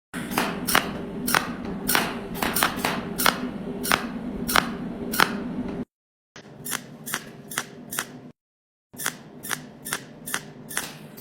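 A small machine's motor running with a steady hum, over irregular sharp clicks about twice a second. The sound cuts off abruptly twice and resumes.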